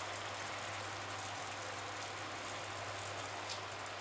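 Faint, steady hiss of hake slices cooking in cockle broth simmering in a frying pan, over a steady low hum.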